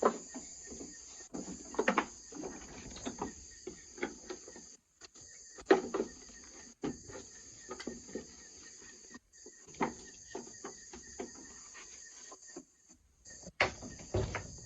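Irregular hammer knocks and taps as a feed box is being fixed, the strongest a few seconds apart, over steady cricket chirring.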